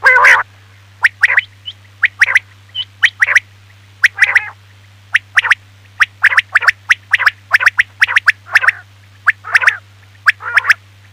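Quail calling, the recorded call used to lure quail in hunting: short, sharp notes in quick pairs and triplets, repeated about every second, over a steady low electrical hum.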